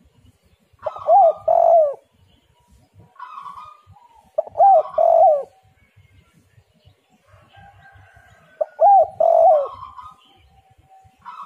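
Spotted dove (tekukur) cooing, its song used as a lure call: three phrases about four seconds apart, each a softer lead-in note followed by two loud, arching coos.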